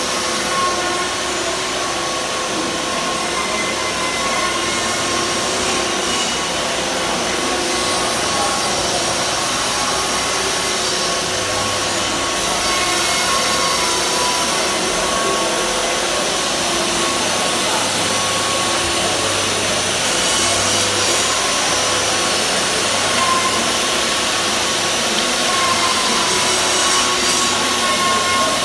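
Shop dust extractors running with a steady whine, with power-tool and wood-handling noise mixed in.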